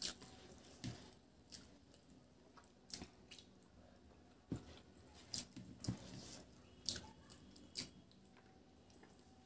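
Eating rice by hand: fingers squishing rice mixed with kochu saag against the plate, and chewing, with a dozen or so irregular sharp clicks.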